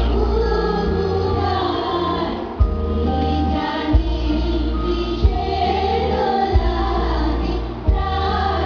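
A recorded song with singing plays over a heavy, booming bass line, with a sharp drum thump about every second and a quarter.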